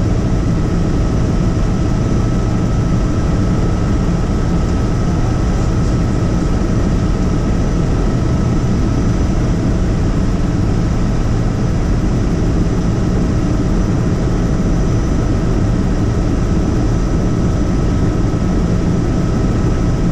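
Helicopter in flight, a loud, steady drone with a constant whine on top of a deep rumble.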